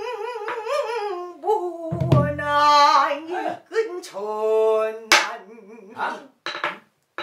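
A woman singing pansori in a strained, full voice with wide vibrato, accompanied by a buk barrel drum: a deep stroke on the drumhead about two seconds in and a sharp stick strike on the drum about five seconds in.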